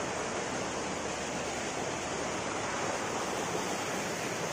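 Small river's water rushing steadily, an even wash of noise.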